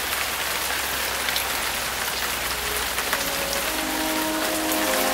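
Steady rain falling, an even hiss with scattered drops. Soft, held musical notes come in about halfway through and grow a little louder near the end.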